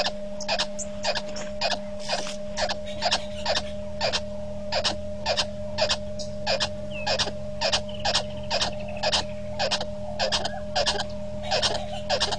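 Frogs calling at the waterhole: short sharp clicking calls repeating about three times a second, over a steady low hum.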